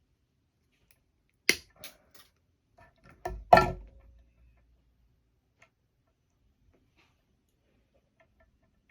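A few sharp clicks and knocks from small objects being handled and set down on a work surface: two about a second and a half in, then a quick cluster, the loudest about three and a half seconds in.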